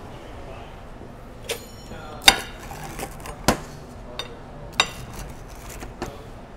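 Sharp clinks of a metal utensil striking a ceramic pizza plate, about six scattered through a few seconds, the loudest about two seconds in; one rings briefly like metal.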